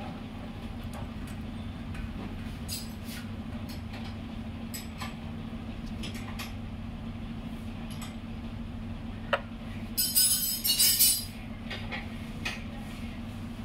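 Metal tools and engine parts clinking during hand work on a scooter engine: scattered sharp clicks, then a louder clatter of metal about ten seconds in, over a steady low hum.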